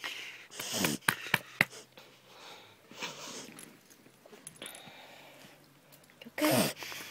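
A dog reverse sneezing: several bouts of rapid, noisy inward breaths through the nose, with a few sharp clicks in between and the loudest bout near the end. The owner puts the episode down to the dog eating sticks and pulling on the lead.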